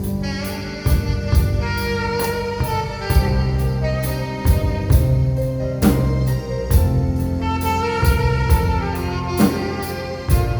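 Live instrumental band music: an alto saxophone playing a melody in long held notes over keyboard and a drum kit keeping a steady beat.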